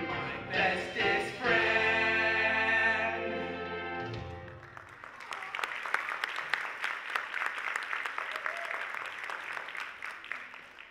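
A musical-theatre song ends on a held final sung note over its backing track, which dies away about four and a half seconds in. The audience then applauds.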